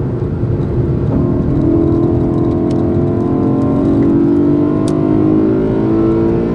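BMW E92 M3's 4.0-litre V8 heard from inside the cabin, accelerating hard out of a corner, its pitch climbing steadily from about a second in, over tyre and road rumble.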